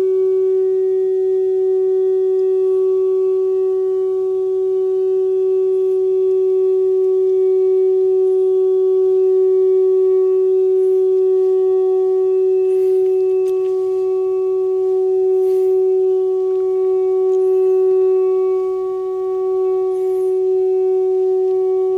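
Shofar tone held at one steady pitch without a break, dipping briefly in level near the end.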